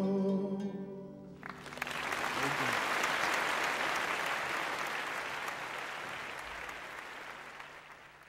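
The last chord of voices, mandolins and acoustic guitars rings out and dies away, then applause starts about a second and a half in and slowly fades out.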